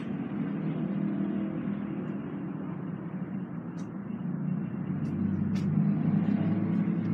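A steady low rumble runs throughout and swells near the end, with a few short wooden knocks as the coat rack's wooden end piece is fitted onto its metal rod.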